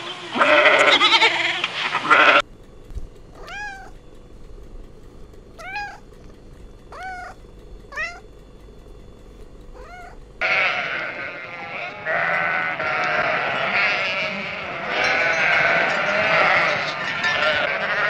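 A young goat bleating for about two seconds, then a domestic cat meowing about five times, each call rising and falling in pitch. Then many sheep in a flock bleating together, overlapping, for the last several seconds.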